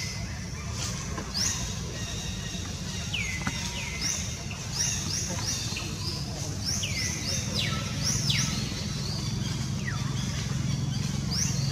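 A bird calling over and over: short runs of three or four quick rising chirps, each run ending in a falling whistle, coming back every three to four seconds over a steady low hum.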